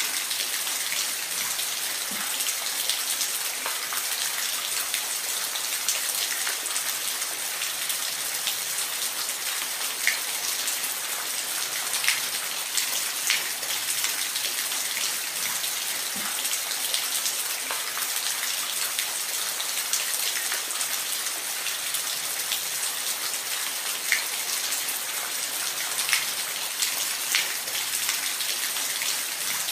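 Steady rain falling on a surface: an even hiss with scattered louder drop hits.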